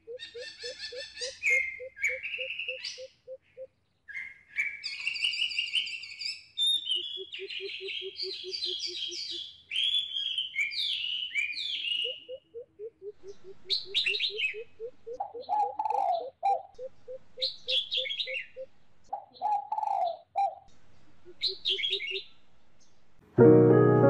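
Bird calls played through a speaker. Trains of low, evenly spaced pulsed notes at about four a second alternate with high chirping and warbling phrases. Piano music comes in near the end.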